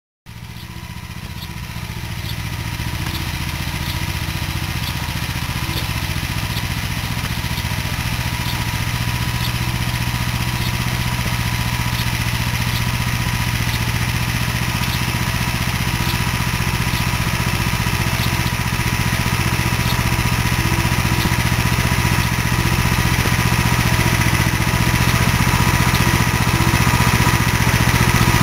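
Engine of a BCS 853 walk-behind two-wheel tractor running steadily as it pulls a disk hiller along a bed. It comes in about a second in and grows slowly louder as the tractor comes closer.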